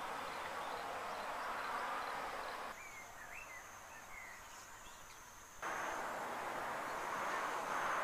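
Outdoor wetland ambience: a steady background of open-air noise. It drops quieter for about three seconds in the middle, where a few short, quick chirping bird calls and a thin steady high whine come through.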